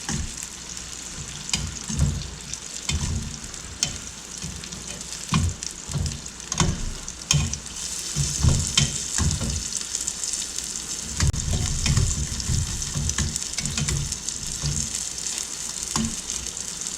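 Chicken wings sizzling in a pan as their sauce reduces down thick and sticky, a steady frying hiss. Scattered clicks and low knocks, typical of a utensil turning the wings in the pan, come and go throughout.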